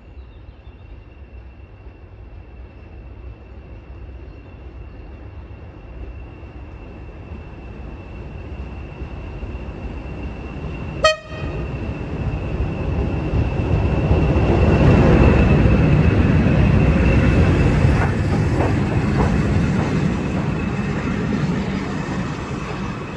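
A pair of Class 20 diesel locomotives draw closer, their English Electric engines rumbling louder, and give a short, sharp horn toot about halfway through. The locomotives and their train then pass close by with heavy running noise, which begins to fade near the end.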